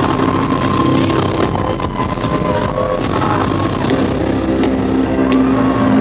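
Stage-show background music: sustained chords held over a low rumble, with a few faint clicks.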